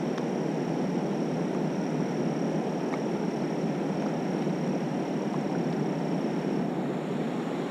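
Steady rushing outdoor noise with a thin, steady high-pitched whine above it.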